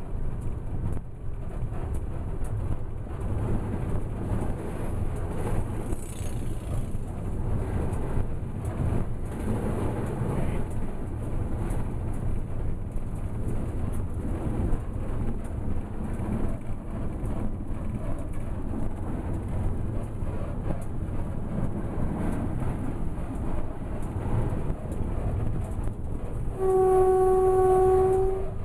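Steady running rumble of a WAP-4 electric locomotive at speed, heard from inside its cab. Near the end the horn sounds once, a single steady note held for about two seconds and louder than the running noise.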